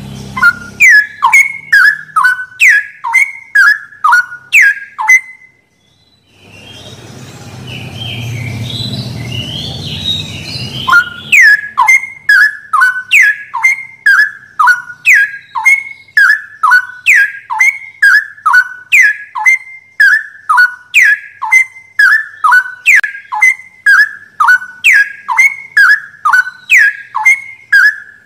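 A songbird calling in a fast, even series of sharp descending notes, about three a second. The calls stop after about five seconds. A low hissing hum fills the gap for several seconds before the notes resume.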